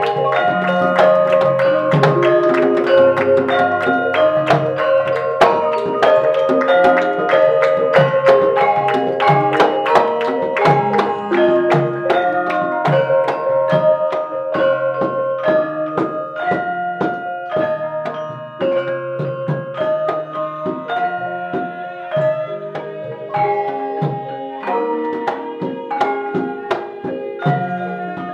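Javanese gamelan ensemble playing a slendro-tuned piece, with bronze metallophones and kettle gongs striking a steady stream of ringing notes over hanging gongs. The playing grows softer about two-thirds of the way through.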